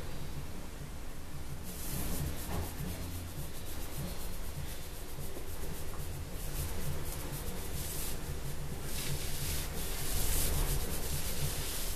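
Scratchy rubbing and rustling that comes and goes in stretches and is loudest near the end, over a steady low hum.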